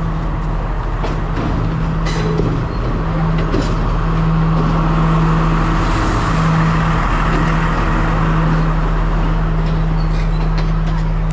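Diesel locomotive engine running with a steady, loud drone as the train draws into the platform, with a few scattered clicks.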